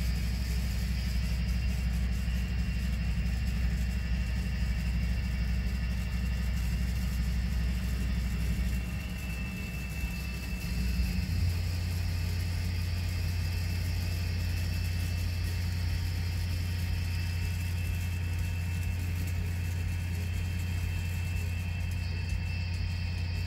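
Model-train sound decoder and subwoofer playing the diesel rumble of EMD SD40-2 locomotives with 16-cylinder engines, working hard under load as a heavy train struggles up a steep grade. The deep rumble dips about nine seconds in, then settles into a steadier, deeper drone, with a faint high whine above it.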